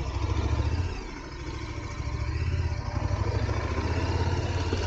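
KTM 1290 Super Adventure S's V-twin engine running at low revs under a slow ride, its rumble swelling and easing with the throttle.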